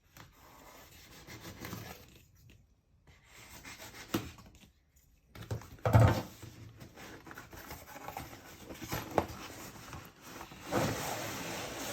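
Cardboard box and packaging being handled and opened by hand: irregular rubbing and scraping, with a dull knock about six seconds in and denser rustling near the end.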